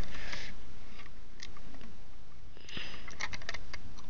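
LEGO plastic pieces clicking and scraping as fingers push a small piece into a brick build: a few scattered clicks, then a quick run of clicks near the end.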